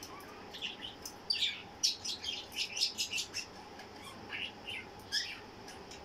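Pet budgerigars chirping in quick, short, high calls, with a dense run of chirps in the middle and a few more near the end.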